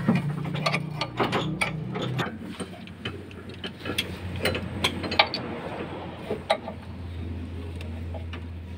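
Ratchet wrench clicking in short irregular runs, with metal clinks, as the mounting bolts of a stuck brake wheel cylinder are worked loose. A low steady hum runs underneath and grows in the second half.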